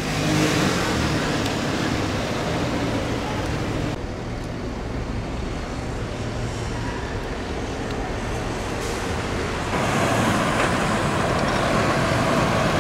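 Steady city road-traffic noise, a continuous rush of passing vehicles. The sound shifts abruptly about four seconds in and again near ten seconds.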